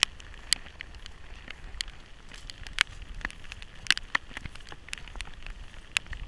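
Raindrops striking the camera: irregular sharp ticks, roughly two a second, over a low rumble.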